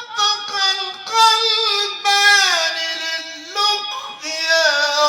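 A high solo voice singing a long melismatic run in classical Arabic tarab style, its pitch sliding and trilling through ornaments, with two brief breaks.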